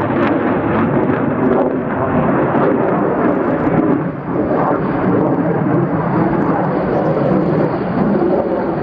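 Transall C-160 transport aircraft passing low overhead, its two Rolls-Royce Tyne turboprop engines running loud and steady, with a brief dip about four seconds in.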